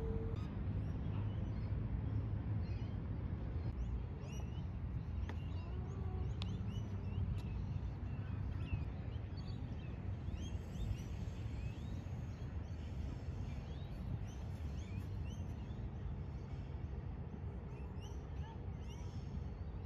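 Many birds chirping and calling in short, quick, curving notes, scattered throughout, over a steady low rumble.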